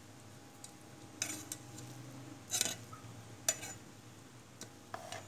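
A spoon stirring cooked rice in a metal pot, with several short scrapes and clinks of the spoon against the pot's side.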